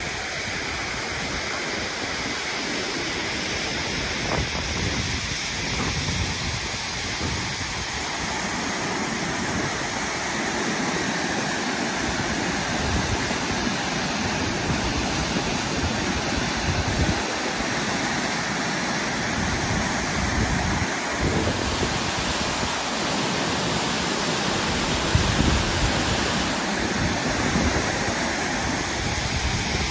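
A waterfall pouring over tiered rock ledges and rushing through rocky cascades into a pool: a steady, even rush of falling water, with wind buffeting the microphone at times.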